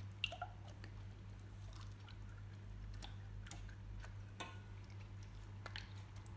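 Clear green slime being stretched, folded and pressed flat by hand, giving faint sticky squishing with scattered small wet clicks and pops, the sharpest about a third of a second in. A low steady hum runs underneath.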